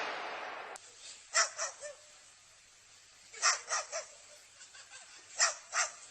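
A dog barking in short yaps, in three quick groups of two or three barks about two seconds apart, after a brief rushing noise at the very start.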